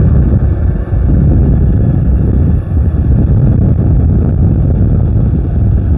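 Wind buffeting the microphone on a moving Ather 450X Gen 3 electric scooter, a steady low rumble with no engine note.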